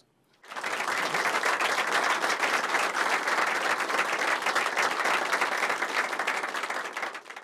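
Audience applauding: dense, steady clapping that starts about half a second in and tapers off near the end.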